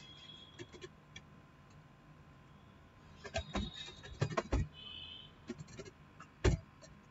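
Computer keyboard typing: an irregular run of keystrokes starting about three seconds in, with a few heavier clacks, the last and loudest near the end.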